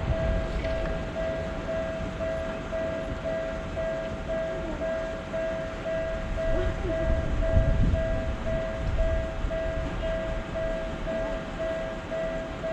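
Japanese railroad crossing warning bell ringing, an evenly repeated electronic ding about twice a second, over the low rumble of a train.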